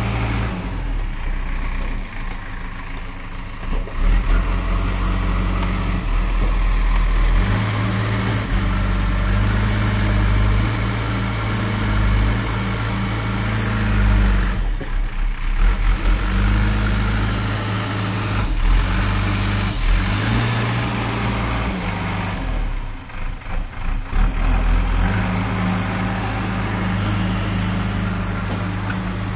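Diesel engine of a JCB 3DX backhoe loader running under load as it drives and pushes earth. Its note steps up and down repeatedly with the throttle, with brief drops around the middle and two-thirds of the way through.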